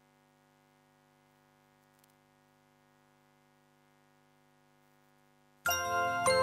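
Faint steady electrical mains hum, then recorded music starts suddenly near the end with bright chiming bell-like notes.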